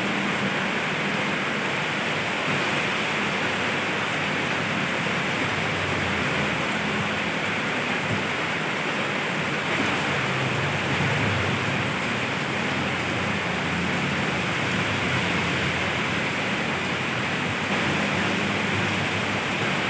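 Steady rain falling, an even hiss, with a low rumble of road traffic beneath it that swells about halfway through.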